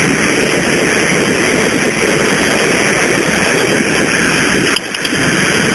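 Small airplane's engine and cabin noise, a loud steady drone heard over a cell phone line, with a brief dip just before the end.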